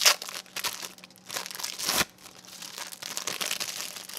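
Plastic packaging around slices of American cheese crinkling as the slices are pulled out: a run of irregular crackles, with a sharp loud one right at the start and another about two seconds in.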